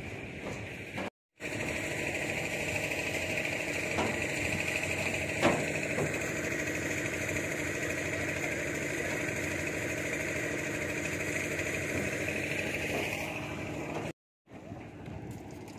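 A motor running steadily, with a few short clicks. The sound drops out briefly about a second in and again near the end.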